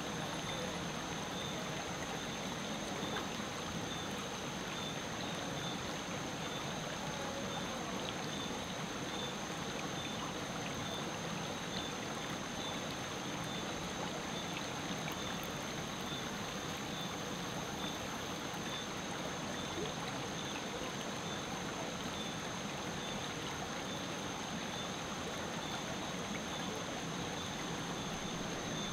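River water running steadily, with a steady high-pitched tone over it.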